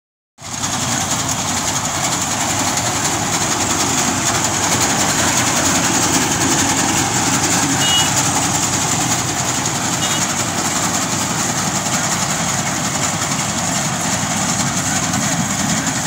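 Tracked combine harvester running steadily while cutting and threshing standing rice: a continuous loud mechanical din with a steady high hiss.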